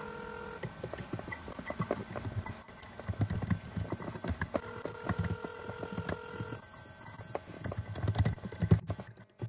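Telephone ringback tone heard through the phone line. A two-second ring ends within the first second and a second ring comes about four seconds later, while the line is not yet answered. Scattered clicks and low thumps of handling noise run alongside.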